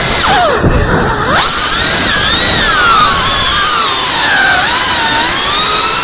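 Geprc Singlog 35 FPV drone's brushless motors whining, several tones sweeping up and down together with the throttle. The whine drops off briefly about half a second in, then climbs back and rises steadily in pitch.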